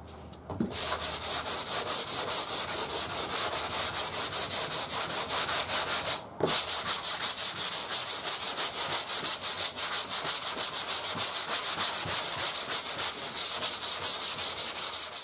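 Sandpaper on a soft rubber hand block scrubbing over urethane primer surfacer on a car panel: quick, even back-and-forth strokes, with one short break about six seconds in. This is block sanding the guide-coated primer down to 120-grit scratches to show up low spots.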